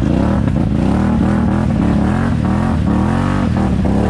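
ATV engines running under changing throttle, the pitch rising and falling over and over as they rev.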